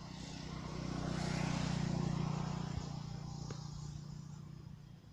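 A motor vehicle passing by, its engine hum and tyre noise swelling to their loudest about two seconds in and then fading away.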